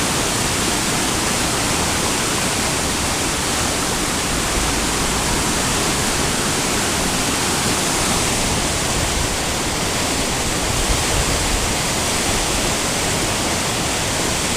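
Flood-swollen river rushing past in a steady, even wash of noise, with the water running just below the top of its banks.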